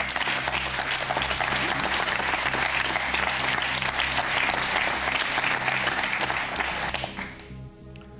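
A group of people applauding, the clapping dying away about seven and a half seconds in.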